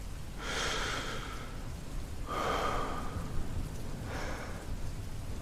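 A man breathing slowly and audibly close to the microphone, three long breaths of about a second each, in and out. It is paced breathing, done to calm the listener.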